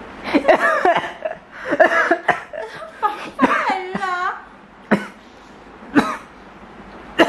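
A young woman laughing for the first few seconds, then coughing three short, sharp times about a second apart.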